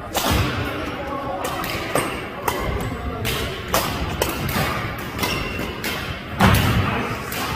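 Badminton rally: racket strings striking the shuttlecock over and over, a sharp hit every half second to a second, with a heavier thud about six and a half seconds in.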